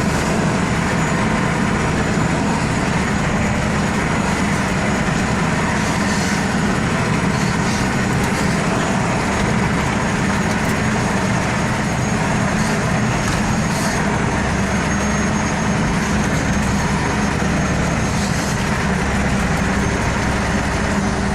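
Diesel engine of a heavy vehicle running steadily under way, a loud even drone.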